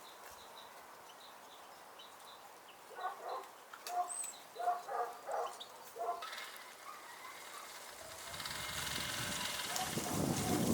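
Small birds calling: faint, short, high chirps, then a run of louder, lower, harsher calls about three seconds in. From about six seconds a rustling noise rises and grows louder toward the end.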